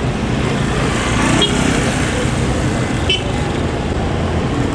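Road traffic: vehicle engines running and tyres on the road, with one vehicle passing close about a second in.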